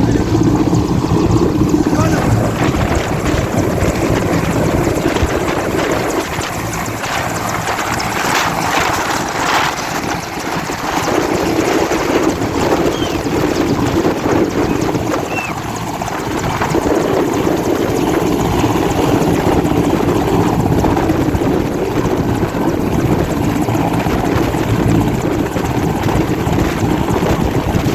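Helicopter rotor and engine running loud and steady, easing slightly twice midway.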